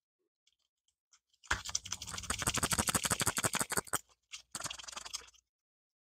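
MRE peanut butter pouch being torn open, a rapid plastic crackle. It comes in two bursts: one about two and a half seconds long starting near one and a half seconds in, then a shorter one about a second later.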